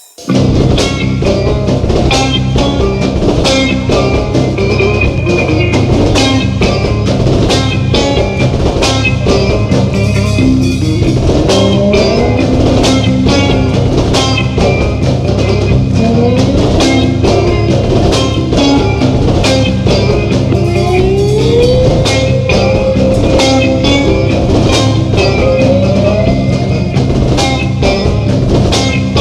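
Live stoner rock band, with drum kit, bass and electric guitar, coming in together with a loud crash just after the start and playing a heavy riff at a steady beat. Several times a melodic line slides up in pitch.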